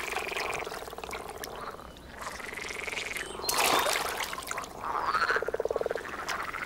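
Common frogs (grass frogs) croaking in a chorus of low, pulsing calls, with a fast run of pulses near the end. About three and a half seconds in there is a splash as a frog lands in the water.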